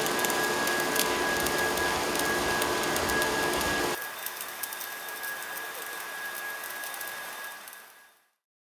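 Electric arc welding on a metal pipe: a dense crackling hiss with a steady high whine behind it. It drops to a quieter level about four seconds in and fades out near the end.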